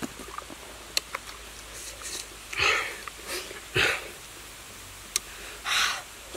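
Fibrous husk of a green coconut being torn away by hand and teeth: three short ripping sounds, with a few small sharp clicks between them.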